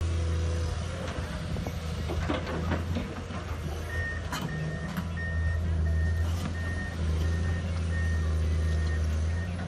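Komatsu PC210 hydraulic excavator's diesel engine running steadily under load, with a burst of knocks and rattles about two seconds in as material drops from the bucket. From about four seconds in, the machine's high-pitched warning beeper sounds at an even pace, about two beeps a second.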